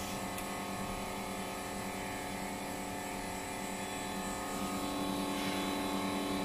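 Steady machine hum with several constant tones from a flex-cable hot-press bonding machine during its 12-second pressing cycle, growing slightly louder about two-thirds of the way in.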